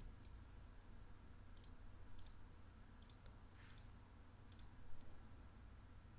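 Faint computer mouse clicks, about five spread over several seconds, each a quick press-and-release, over a low steady room hum.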